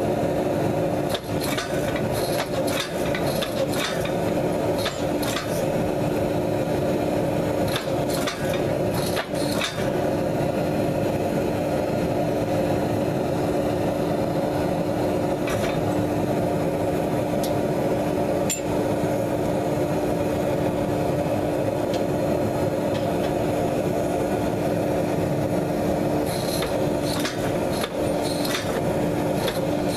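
Hydraulic forging press running steadily, its pump motor humming on one steady pitch while it squeezes a hot steel billet. Short knocks and ticks come now and then, mostly in the first ten seconds and again near the end.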